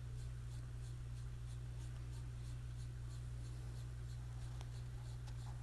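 Steady low electrical hum with faint hiss, and faint ticks up high.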